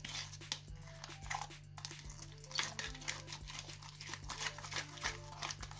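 Thick, sticky slime being stirred and scraped with a plastic spatula in a plastic bowl, giving irregular wet crackling squelches. The slime has just been activated with boric acid and is almost set.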